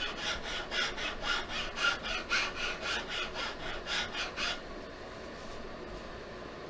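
Quick back-and-forth hand strokes abrading poplar wood, about three to four strokes a second, smoothing down a high spot on a walking-stick handle. The strokes stop about four and a half seconds in, leaving faint room noise.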